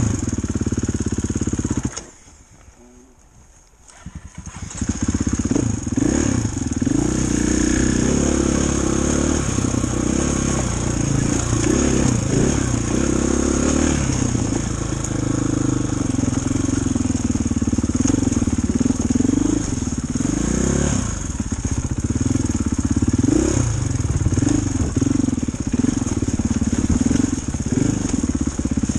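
Dirt bike engine heard from the rider's seat while the bike is ridden over a rocky trail. About two seconds in it drops quiet for a couple of seconds, then picks up and runs on with the revs rising and falling.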